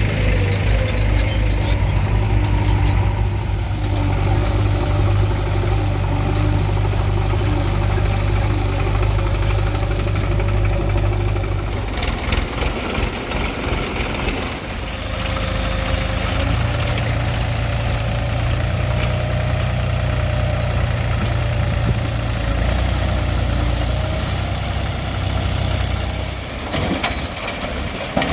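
Heavy diesel engines of a backhoe loader and tractors running steadily. The engine note changes partway through, with a few short knocks around the same time.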